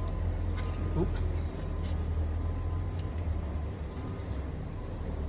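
Scattered light clicks and taps of a hand tool working on the door trim panel as its screws are driven back in, over a steady low hum.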